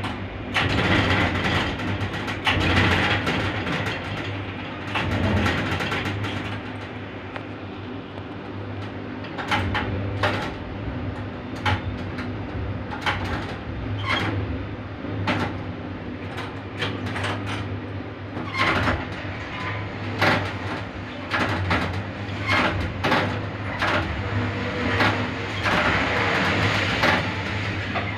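Steel melt shop furnace area: a steady low hum under frequent, irregular sharp cracks and bangs.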